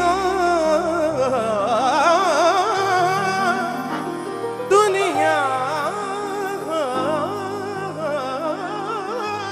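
Male singer's heavily ornamented, melismatic vocal runs over sustained harmonium chords. A new phrase starts sharply about halfway through.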